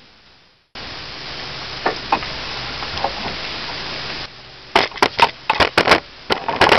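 A steady hiss with a few faint clicks, then, from about four and a half seconds in, a quick run of a dozen or so sharp, loud cracks and snaps.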